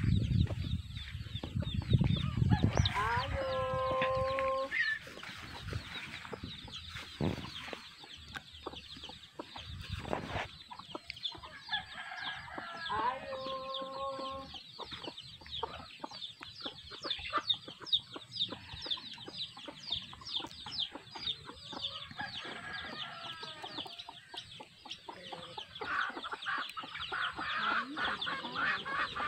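Free-range chickens: a rooster crows twice, about three seconds in and again about thirteen seconds in, over clucking and a steady stream of high, rapid chick peeps.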